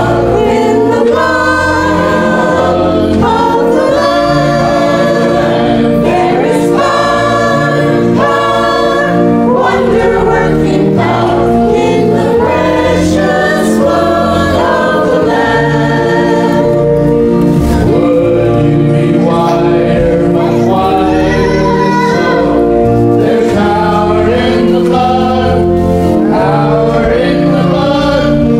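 Church choir singing, held chords changing every second or so.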